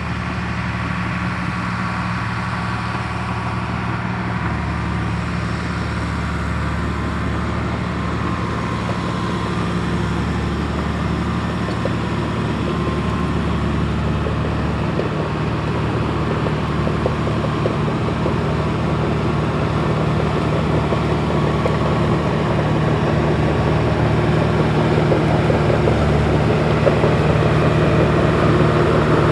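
Caterpillar D4H dozer's diesel engine running steadily, growing gradually louder.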